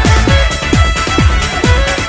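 Electronic dance music with a steady kick-drum beat and a synth line.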